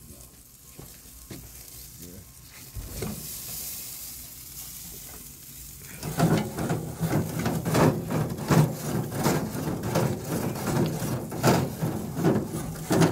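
A faint sizzling hiss, then from about six seconds in a grill brush scraped quickly back and forth across the grill grates in repeated rasping strokes, cleaning them off.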